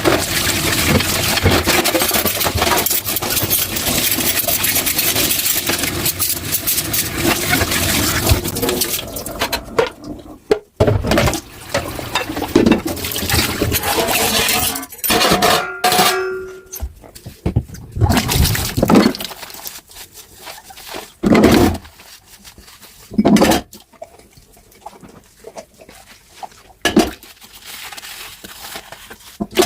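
Tap water running steadily into a kitchen sink, stopping about nine seconds in. After that, dishes are handled by hand with scattered clinks and knocks, and a short squeak partway through.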